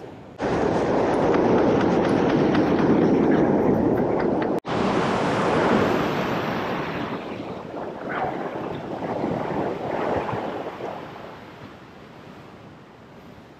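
Ocean surf washing over a rock ledge: a loud, even rush that cuts in suddenly, drops out for an instant a few seconds in, then slowly eases off as the wave wash subsides.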